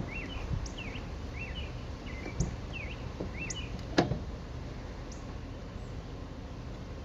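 Small birds chirping over and over, short quick chirps. A sharp click about four seconds in is the loudest sound, with a couple of lighter knocks shortly before it.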